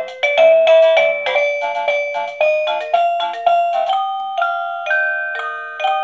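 Esonstyle plug-in wireless doorbell receiver playing one of its built-in electronic chime melodies: a quick tune of bell-like notes, several a second, from its small speaker.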